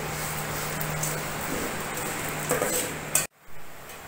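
Metal spoon stirring and scraping broken wheat in a metal pot, with a few clinks against the pot near the end before the sound breaks off briefly.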